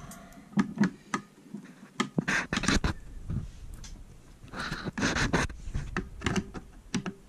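Handling noise of hand tools on a wooden desk: scattered clicks and knocks with a few brief scrapes as a long screwdriver is picked up from a bit set and worked into the pistol grip of an airsoft rifle.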